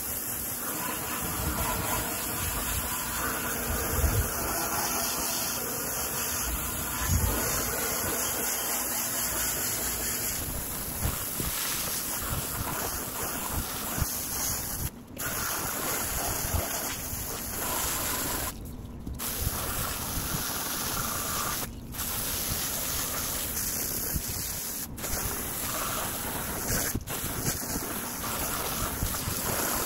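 Garden hose pistol-grip spray nozzle hissing as it jets water onto a wooden fence, the spray spattering on the boards while cleaner is rinsed off. The spray cuts out briefly a few times.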